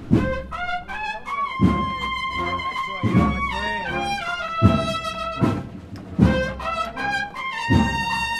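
Semana Santa bugle-and-drum band (cornetas y tambores) playing a processional march: a held, stepping bugle melody over regular drum strokes about every second and a half.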